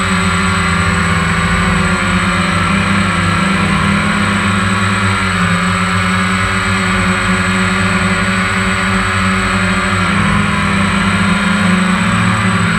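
Quadcopter's electric motors and propellers whirring steadily close to the camera, their pitch shifting a little as the throttle changes, with a thin high whine over them.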